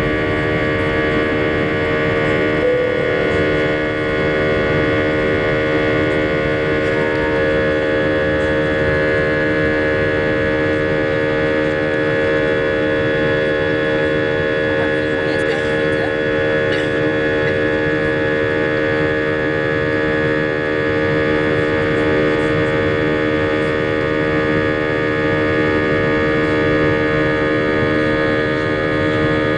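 Airbus A320 turbofan engines at climb thrust, heard from inside the cabin beside the engine: a steady drone of several held tones over a rushing noise.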